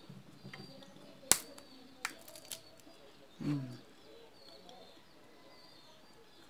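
Boiled peanut shells being split open by hand: a sharp crack a little over a second in and a few softer clicks. About halfway through comes a short, low sound that falls in pitch.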